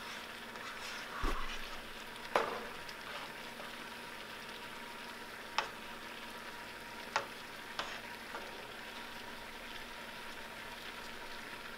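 Spicy seafood sauce sizzling and bubbling in a pot on the stove over raised heat. It is being stirred with a plastic spoon, which knocks against the pot a few times, sharpest about two seconds in.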